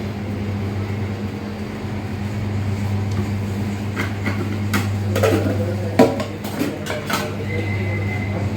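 Utensils and containers clinking and knocking in a busy kitchen over a steady machine hum, with a sharp knock about six seconds in.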